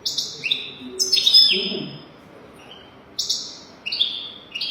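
European goldfinch singing: quick twittering, trilled phrases, with a pause of about a second in the middle before the song picks up again.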